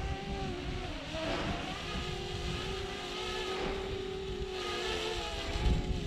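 Parrot Anafi quadcopter's propellers humming as the drone flies, a steady tone that wavers slightly in pitch.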